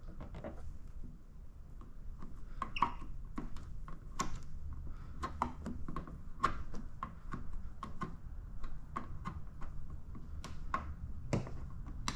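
Irregular light clicks and taps, a few a second, from hands working paint protection film onto a truck fender.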